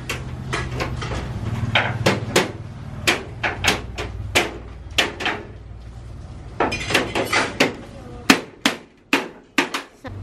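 Hammer blows, irregular and sharp, a couple of dozen, as the frame of a sliding glass door is fixed in place. A low steady rumble underneath fades out about eight seconds in.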